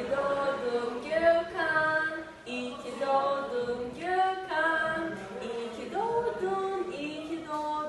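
A woman singing unaccompanied: a melodic line of long held notes with slides between them.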